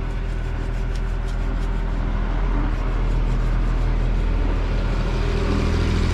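A motor vehicle's engine running steadily with a low hum, growing a little louder about three seconds in.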